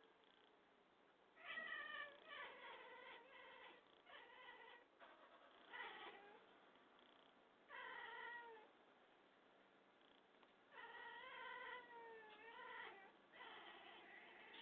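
Cat meowing repeatedly: about six drawn-out calls with wavering, bending pitch, separated by short pauses.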